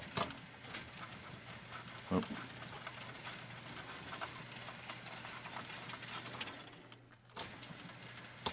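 Rock-Ola 496 jukebox's record carousel mechanism running, a steady hum under a run of light clicks, with a clunk right at the start. It keeps going around instead of stopping at home position, and the control unit is not counting its position right.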